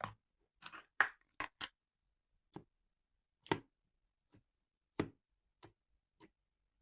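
Slime being squeezed and poked by hand, giving a dozen or so short, sharp clicking pops at irregular intervals.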